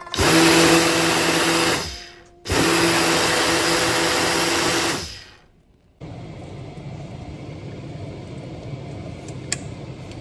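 Ninja personal blender run twice, about two seconds and then about three seconds, blending crushed ice with red syrup, its motor winding down after each press.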